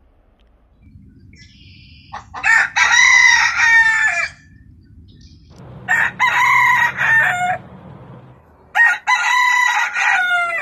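Onagadori roosters crowing: three separate crows about two, six and nine seconds in, the first the longest at around two seconds.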